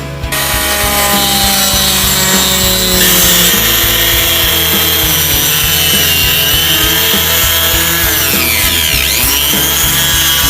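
A power tool cutting, loud and noisy. It starts abruptly just after the start, and its whine dips and rises again about eight to nine seconds in.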